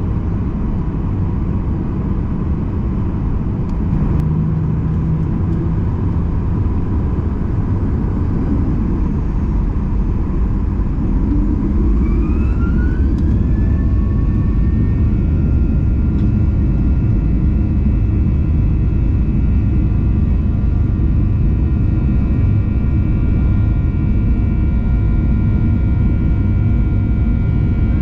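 Boeing 737-800's CFM56-7B jet engines heard from inside the cabin: a steady low rumble, then about halfway through a rising whine as the engines spool up, settling into steady high-pitched tones over a louder rumble.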